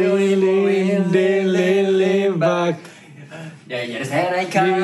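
A man singing without accompaniment: a long held note, a short drop in pitch, a break of about a second, then more held notes.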